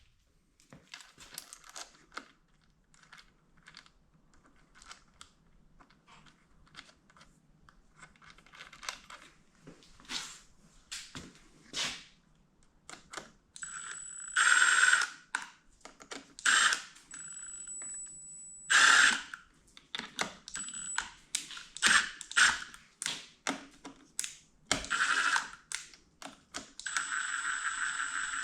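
Hand tools clicking and knocking on motorcycle parts, then a cordless power tool, an impact driver or electric ratchet, running in several short bursts of one to two seconds each, the longest near the end.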